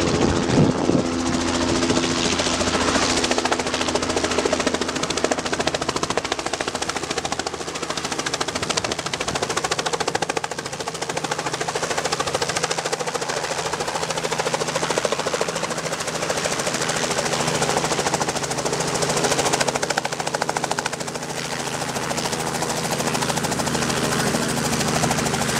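Robinson R44 helicopter close by, its main rotor chopping steadily over the piston engine as it descends, hovers and sets down on its skids. The rotor keeps turning at the same steady chop after touchdown, dipping slightly in loudness now and then.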